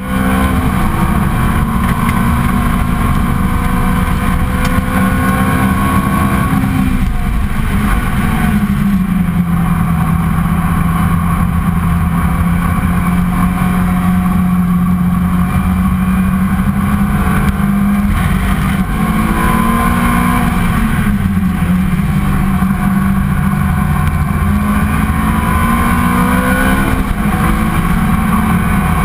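Ferrari 430 GT3's V8 engine heard from inside the cockpit at racing speed, loud and continuous. Its pitch falls about seven seconds in as revs drop, then climbs slowly, with another dip and rise later on.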